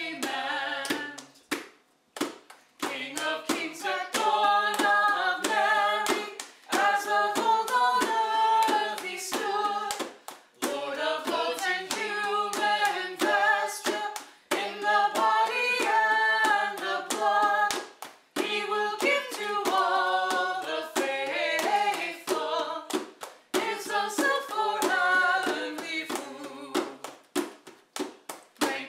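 Hymn singing, held notes moving step by step in long phrases, with short breaks between lines.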